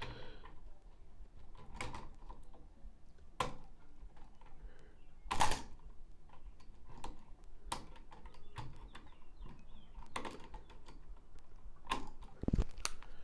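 Scattered small clicks and taps of hand tools and wiring being handled while a light switch is wired up. The loudest click comes about five seconds in, and there is a low thump near the end.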